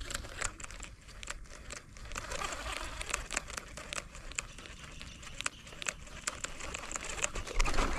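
Irregular clicks and rustling from handling a baitcasting rod and reel while a lure is being retrieved.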